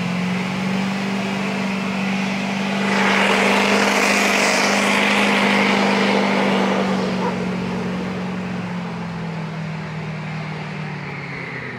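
Vehicle engine running with a steady low drone. A rushing swell of noise comes in about three seconds in and lasts a few seconds, then the whole sound slowly fades.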